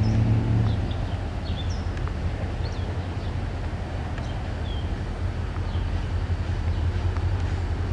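Diesel locomotive engine running at low speed as it rolls slowly, a steady low drone that is a little louder in the first second. Short high chirps, like small birds, come and go over it.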